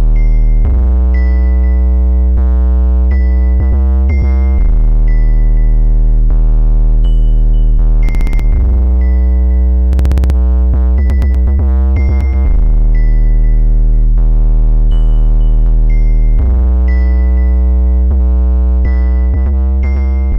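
Background synthesizer music with sustained bass chords that change about every four seconds.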